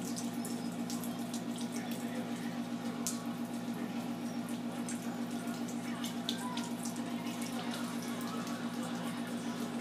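Thin stream of tap water running into a bathroom sink, with small splashes and drips as a cat paws at the stream, over a steady low hum.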